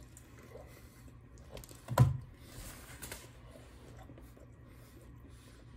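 Quiet chewing of pizza close to the microphone, with one sharp crunch or click about two seconds in.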